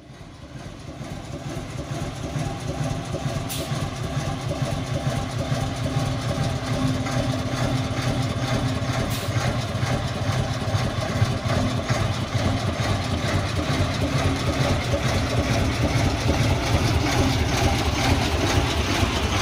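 Dennis RS130 fire engine's engine idling steadily.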